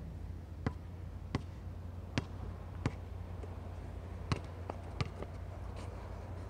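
Basketball bouncing on an outdoor hard court as it is dribbled: single sharp bounces about two-thirds of a second apart, less even later on, over a steady low hum.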